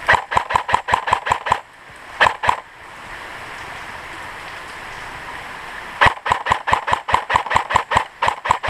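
Airsoft rifle firing quick strings of shots: about a dozen sharp cracks in the first second and a half, two more around two seconds in, and another long string from about six seconds in. Between the strings a steady rush of stream water goes on.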